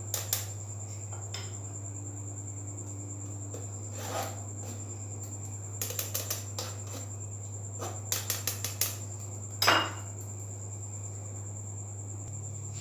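Spoon working flour and cocoa powder through a small metal mesh sieve over a plastic bowl: irregular light scrapes, taps and clicks of metal on metal, in small clusters, with one sharper knock near the end. A steady high-pitched whine and a low hum sit underneath.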